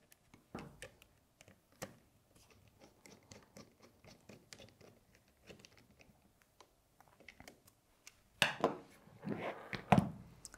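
Small clicks and scrapes of plastic and metal airsoft rifle parts being handled and fitted together by hand, with louder scraping and a few sharp clicks near the end.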